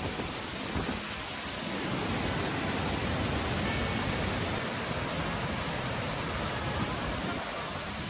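Steady rush of a large waterfall in heavy flow, pouring down a rock face into a pool.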